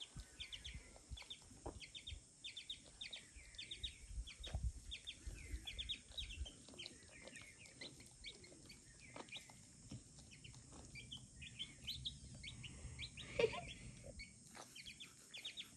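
A chick peeping over and over in short, high cheeps, several a second, with soft low thumps now and then.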